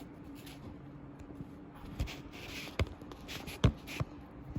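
Handling noise close to a phone's microphone as the phone is repositioned: a few sharp taps and knocks with faint rustling, over a low steady hum.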